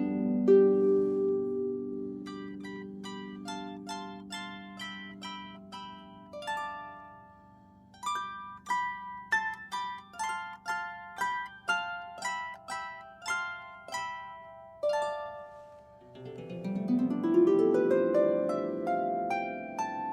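Solo harp playing. A low chord rings out and fades, then a melody of single plucked notes, about two or three a second, runs in the upper register. Near the end a fast run of notes sweeps upward, ringing together.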